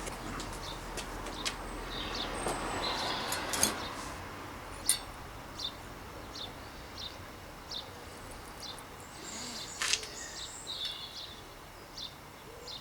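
A small bird chirping over and over, one short high call about every 0.7 seconds from about four seconds in, with scattered sharp clicks and knocks of hand tools working on a bicycle hub.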